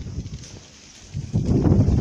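Goat bleating, a loud quavering call that starts about a second in.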